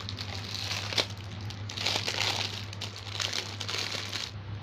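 Clear plastic wrapping crinkling in uneven bursts as it is pulled open by hand, with one sharp snap about a second in. The crinkling stops shortly before the end.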